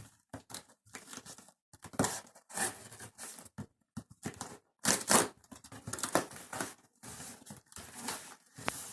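Cardboard box being cut with a knife and torn open, in irregular scraping and ripping bursts with some crumpling of the packaging; the loudest rips come about two and five seconds in.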